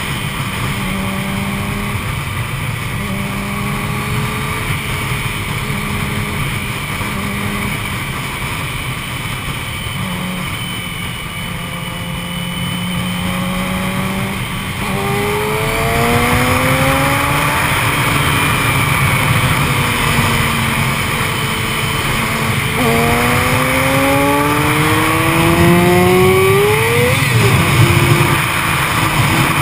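Yamaha YZF-R6's inline-four engine heard through heavy wind rush: about fifteen seconds of steady cruising, then hard acceleration with the revs climbing twice, and a gear change cutting the revs sharply near the end. The owner reports a broken clutch making the shifts long.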